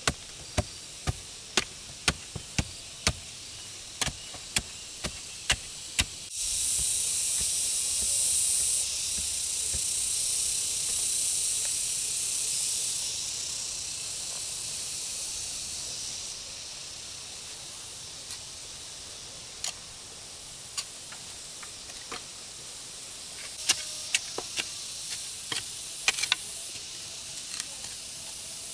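A run of sharp knocks, about two a second. Then a loud, high hiss starts suddenly about six seconds in and fades slowly over some ten seconds, with a few scattered knocks again near the end.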